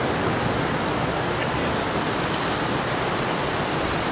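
Water running steadily: a loud, even hiss with no breaks and no rise and fall.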